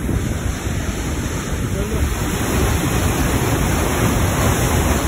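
A waterfall pouring through a narrow rock canyon: a loud, steady rush of falling water.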